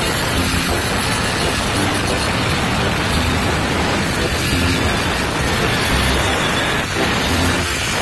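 Angle grinder with an abrasive disc grinding down a weld bead on a thin steel tube: a steady, harsh grinding noise of disc on metal.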